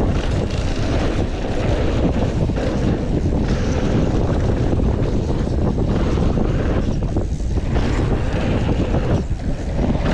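Wind rushing over a GoPro microphone, with the steady rumble and rattle of a mountain bike rolling over a dirt trail.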